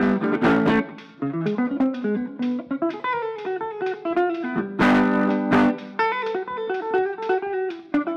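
Solo archtop guitar played instrumentally: runs of single notes mixed with strummed chords, with loud full strums just after the start and again about five seconds in.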